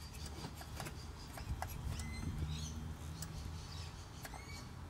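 Faint light clicks from the throttle linkage of a carbureted Toyota 4K engine being worked by hand to test the accelerator pump, which is working. Birds chirp in the background.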